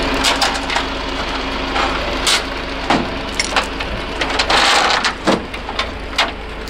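An engine idling steadily under a string of sharp metal clanks and knocks, with a short hiss about four and a half seconds in.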